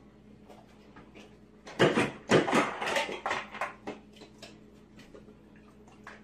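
Refrigerator door ice dispenser worked by a dog's muzzle: ice cubes clatter out in a rapid run of hard clicks for about two seconds, starting a little under two seconds in.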